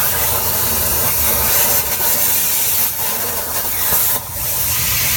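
CNC plasma cutter's arc and air jet hissing loudly and steadily as it cuts sheet metal, with three short breaks in the hiss.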